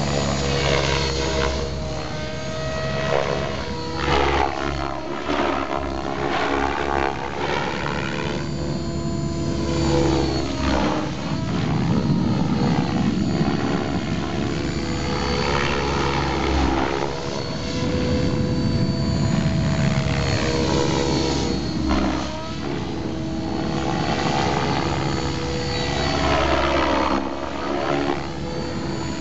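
Compass 7HV electric RC helicopter in flight: a steady whine from the motor and drivetrain under the whoosh of the main rotor blades. The whoosh swells and fades again and again, and its pitch sweeps, as the helicopter swoops past and turns.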